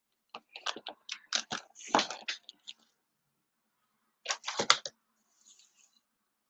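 Handling noise close to the microphone: a quick run of clicks and knocks with a brief rustle for about two and a half seconds, then a second short cluster of knocks about four seconds in.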